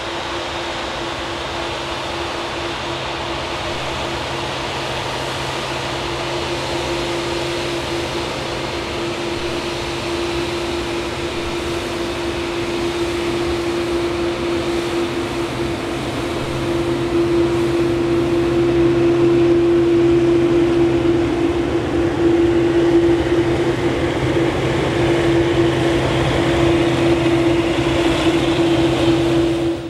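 Boeing 787 airliner's turbofan engines at taxi idle: a steady hum with a held tone, growing louder about halfway through as the aircraft taxis close past.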